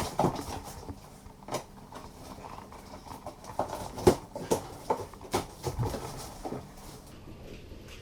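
Cardboard box and packaging being handled and opened: irregular knocks, clicks and short scrapes and rustles.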